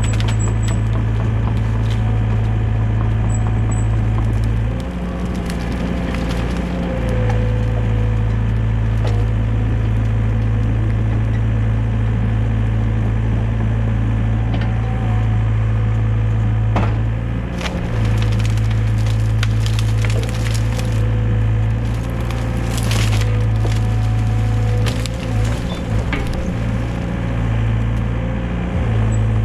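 Excavator's diesel engine running with a steady drone that dips briefly a few times, while brush and branches crack and snap repeatedly as the excavator works the pile.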